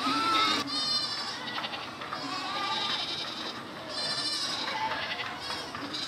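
A herd of goats bleating: about five separate calls one after another, some overlapping.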